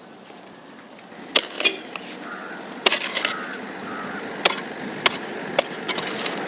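A hand digging tool striking and scraping into dry soil: about six sharp knocks at uneven intervals over a scraping noise that grows louder from about halfway in.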